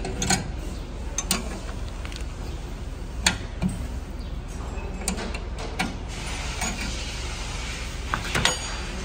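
Scattered sharp metal clinks and taps as hand tools knock against a diesel injector nozzle held in a steel bench vise, about half a dozen at irregular intervals, the loudest about three seconds in and near the end, over a steady low workshop hum.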